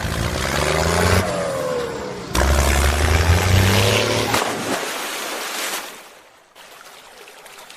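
A vehicle engine revs in two bursts, the first starting abruptly and the second about two and a half seconds in, with rising and falling pitch, then dies away about six seconds in. The engine sound is layered over a wash of splashing water.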